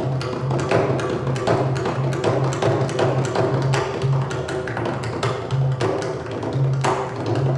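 Pakhawaj, a two-headed barrel drum, played solo in a fast, dense rhythm. Sharp cracking strokes on the small head are mixed with deep booming strokes from the bass head that come back every half second or so.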